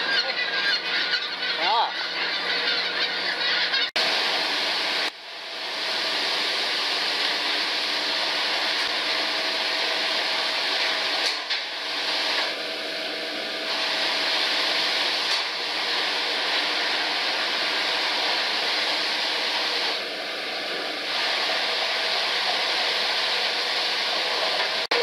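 Gulls calling over a fishing boat's deck, then a sudden cut about four seconds in to a steady loud rush of water pouring from hoses into a stainless steel fish-washing trough, with processing machinery humming. A short high tone sounds twice.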